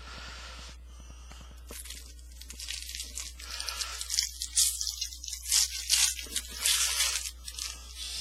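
Foil wrapper of a trading-card pack being torn open and crinkled, in irregular rustling bursts that start about two seconds in.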